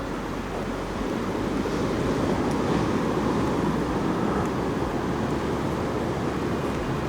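Ocean surf washing onto a sandy beach, mixed with wind on the microphone: a steady rushing noise that swells slightly about a second in.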